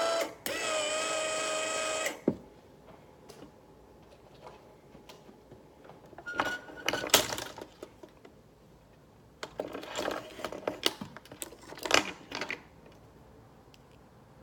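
Small electric linear actuator motor running with a steady whine. It cuts out for a moment, runs again at a slightly different pitch as the toggle switch flips its direction, then stops with a click about two seconds in. Scattered clicks and rattles of the switch and mechanism being handled follow.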